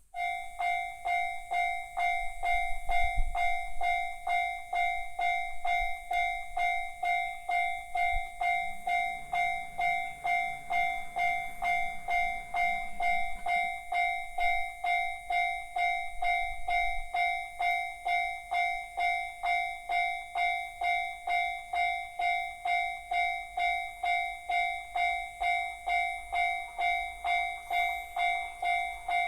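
Japanese railway level-crossing alarm in the JR standard warning tone: an electronic bell dinging about twice a second. It starts suddenly and keeps a steady rhythm, warning of an approaching train.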